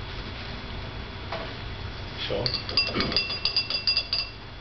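A metal bar spoon clinking rapidly against a glass, about a dozen quick clinks over two seconds starting about halfway in, the glass ringing between strikes.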